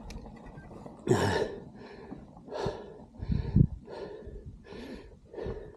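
A mountain biker breathing hard close to the microphone, quick rushing breaths about one and a half a second, the loudest about a second in: he is out of breath from riding the rocky trail.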